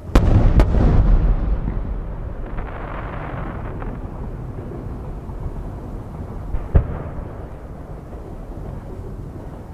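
Two 12-inch (尺玉) aerial firework shells bursting in quick succession: two loud booms about half a second apart, followed by a long rolling rumble of echo that slowly dies away. Another sharp bang comes about seven seconds in.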